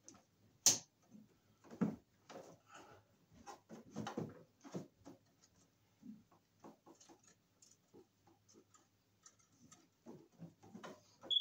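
Scattered clicks, taps and rustles of a sheathed electrical cable and its wires being pushed and pulled through a metal main breaker panel, with one sharp click less than a second in.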